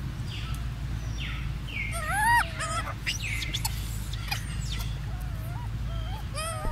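Golden snub-nosed monkeys calling: a series of short, chirping calls that waver up and down in pitch, the loudest about two seconds in and a quick run of smaller calls near the end, over a steady low hum.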